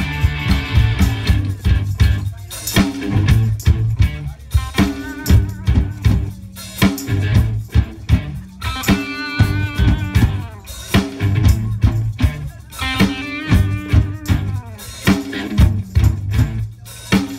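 Live rock band playing: electric guitars over a drum kit with sharp snare and bass drum hits, and no singing.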